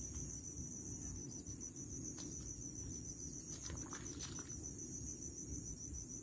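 Steady, high-pitched chorus of evening insects over a low rumble of wind on the microphone, with a few brief clicks and rustles about two seconds in and again around the four-second mark.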